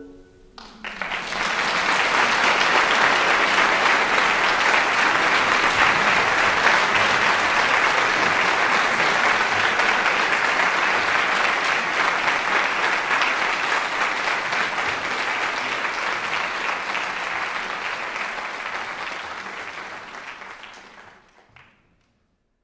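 Audience applauding as the orchestra's last chord dies away. The clapping starts about a second in, holds steady and dense, then fades and stops near the end.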